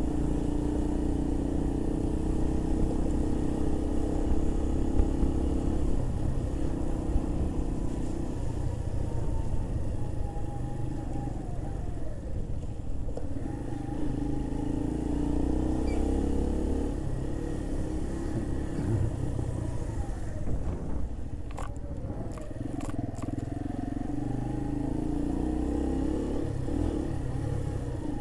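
Keeway RKV 125's single-cylinder four-stroke engine under way, its pitch falling twice as the bike slows and rising again as it picks up speed. A few short clicks are heard about three quarters of the way through.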